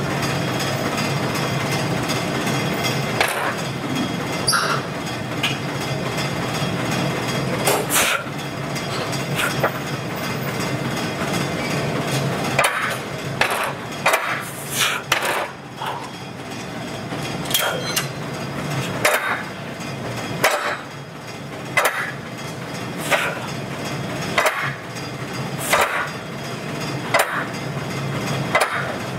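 Leg extension machine knocking sharply with each repetition, about once every second and a half, over a steady background hum.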